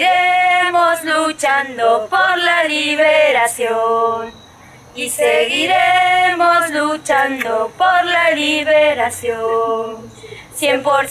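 A small group of women and men singing a protest song without accompaniment, women's voices the strongest. The song comes in two long sung phrases with a short pause about four seconds in.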